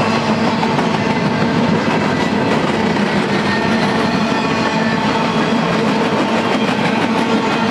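Empty intermodal well cars of a freight train rolling past: a steady rumble of steel wheels on rail, with light clicks and a few faint steady tones over it.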